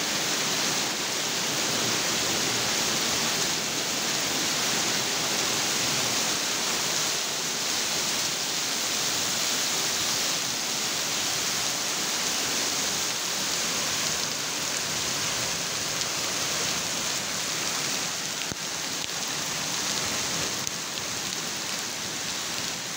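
Hail mixed with heavy rain pelting a paved courtyard: a steady, dense hiss of pellets and drops striking the ground.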